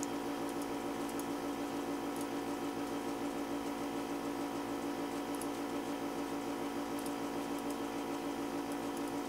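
Steady electrical or fan hum picked up by the recording microphone, with a fast even flutter in its level and a few faint clicks.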